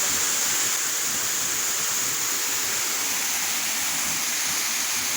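Waterfall and stream water rushing: a steady, even hiss without breaks.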